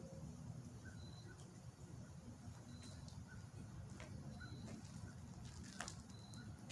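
Quiet outdoor ambience with a steady low rumble, a bird giving a short high chirp about every second and a half to two seconds, and a few crunching footsteps on gravel near the end.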